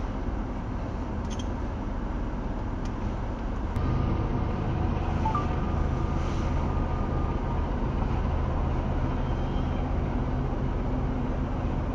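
Freight train of tank cars rolling through a road crossing, a steady rumble of wheels on rail heard from inside a stopped car, getting louder about four seconds in.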